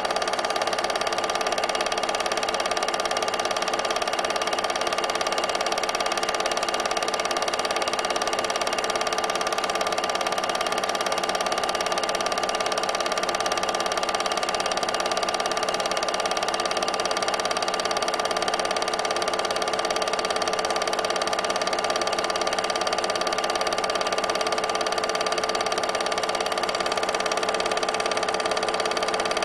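8mm film projector running: a steady mechanical whirr with a constant hum that does not change.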